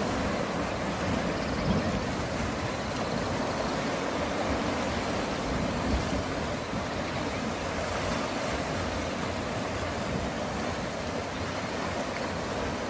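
Sea waves washing against a rocky volcanic shore: a steady, continuous surf.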